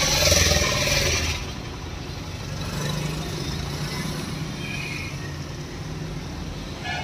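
Fully loaded lorry's diesel engine running steadily under way, heard from inside the cab along with road noise; a hiss in the first second or so.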